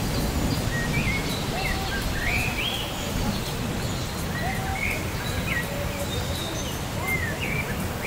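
Birds chirping in short calls that rise and fall in pitch, over the steady hiss of light rain, with a low rumble underneath.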